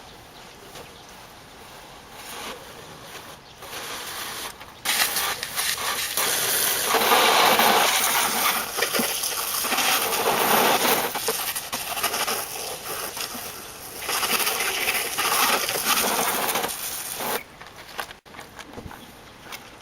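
Water from a garden-hose spray nozzle hitting a car's body and wheels. It starts about five seconds in, swells and eases as the spray moves, and shuts off near the end.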